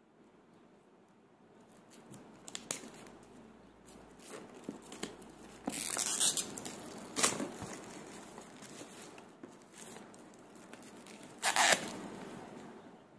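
Clear plastic shrink-wrap being picked at with a fingernail and torn off a smartphone's retail box, crinkling and tearing in short, uneven bursts. The loudest tears come about six seconds in and again near the end.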